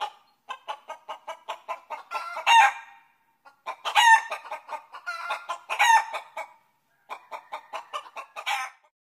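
Chicken cackling: rapid runs of short clucks, each building to louder, drawn-out squawks, in three bouts with short pauses between.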